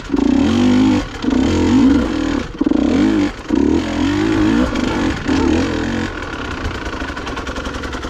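KTM dirt bike engine revving in repeated short bursts of throttle, dropping back between each one, as it climbs over a rocky trail. About six seconds in the bursts stop and it settles to lower, steadier revs.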